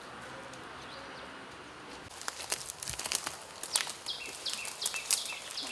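Footsteps crunching on dry leaf litter and twigs, starting about two seconds in as sharp crackles. Over the last couple of seconds a bird calls in a fast series of short falling chirps.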